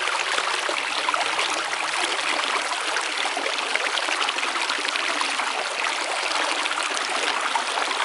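A stream of running water babbling steadily, a dense patter of small splashes with little low rumble.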